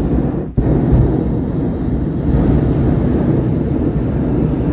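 Wind buffeting the camera microphone: a loud, steady low rumble, broken by a brief dropout about half a second in.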